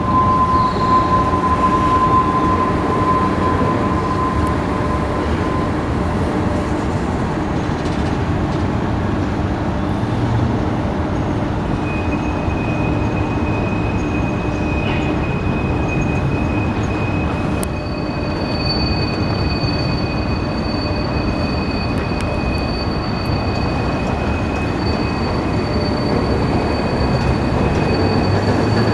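Union Pacific freight cars rolling past with a steady rumble of steel wheels on rail. Thin, high wheel squeals are held over it: one in the first few seconds, then a higher one from about the middle, joined by a still higher one later.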